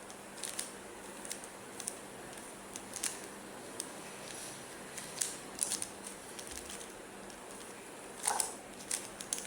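Rubik's cube being twisted by hand: its plastic layers click in scattered, irregular snaps.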